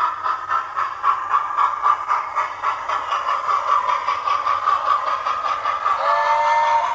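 Hornby TTS sound decoder in a model LNER P2 2-8-2 steam locomotive playing rhythmic steam chuffs as the model runs. Near the end a chime whistle blows for about a second.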